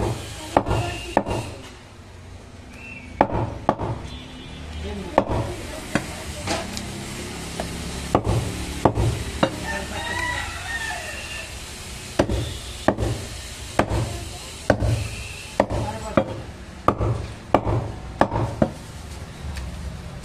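A steel meat cleaver chops goat meat on a thick wooden chopping block: a string of sharp, heavy thuds at an irregular pace, about one a second, sometimes two in quick succession. There is a short pause about halfway through.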